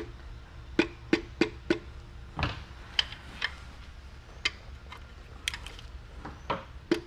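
Light tapping on a connecting-rod bolt to drive a rod and piston out of a BMW S54 engine block. A quick run of four taps comes about a third of a second apart, then a duller knock, then scattered single taps.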